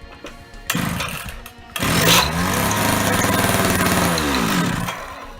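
Two-stroke chainsaw engine driving a 3D-printed gear train. After a short first burst it revs up to high speed about two seconds in, holds there for a couple of seconds, then winds down and stops.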